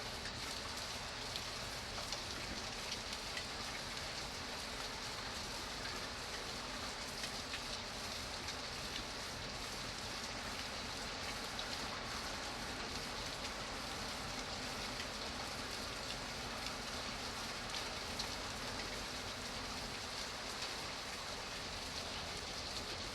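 Steady rain falling, a continuous hiss with many small drop ticks scattered through it.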